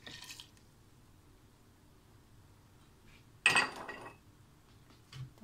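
Salt poured into a pot of water with a brief hiss, then a single loud clink of kitchenware about three and a half seconds in.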